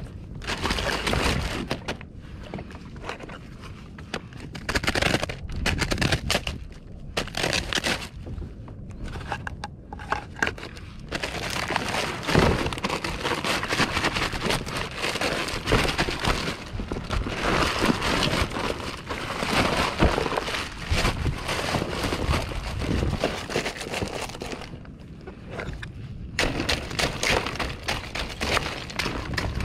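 A plastic bag of ice crinkling and rustling, with ice cubes clattering and crunching as the bagged ice is emptied into a soft insulated fish bag. The handling comes in repeated bursts, busiest through the middle stretch.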